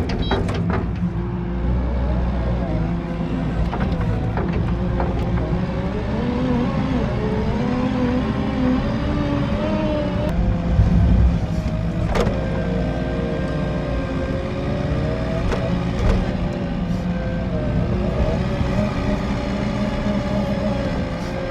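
Vehicle engine running steadily, its pitch rising and falling as it is worked through heavy wet snow.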